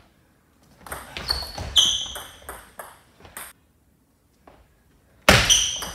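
Table tennis rally: a quick run of sharp, ringing pings as the ball is struck by rackets and bounces on the table. After a short pause, a loud hit near the end starts the next rally.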